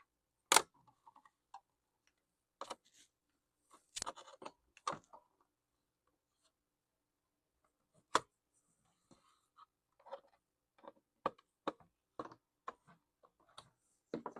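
Scattered sharp plastic clicks and snaps as the Lenovo T430 laptop's palm rest is pried off its clips. The loudest come about half a second in and about eight seconds in, with a short cluster around four seconds and lighter ticks near the end.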